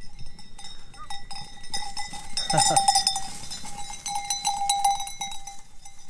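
Bells on sheep clanking and ringing as the ewes walk up, with many uneven strikes that are loudest about two and a half seconds in.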